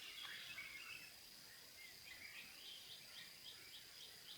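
Faint forest birdsong: soft warbling calls, then from about halfway a run of short chirps repeated about four times a second. A steady thin high whine, like an insect, runs underneath.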